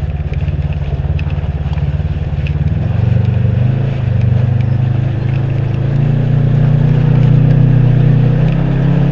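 UTV engine running under way. Its pitch and level climb about three seconds in and again around six seconds as it picks up revs.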